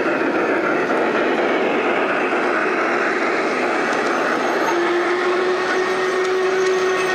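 G-scale model train with large steam locomotives and tank cars rolling past close by, a steady running noise of wheels on track. About two-thirds of the way through a steady hum joins in.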